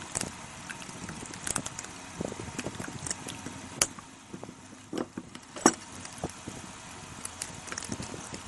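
Jiggly slime being squeezed and worked by hand, giving irregular small sticky pops and clicks, a few louder ones in the middle.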